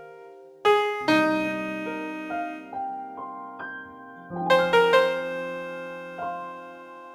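Solo piano playing a slow melody over chords. A chord is struck about a second in and again past halfway, with single melody notes between, each note ringing and fading away.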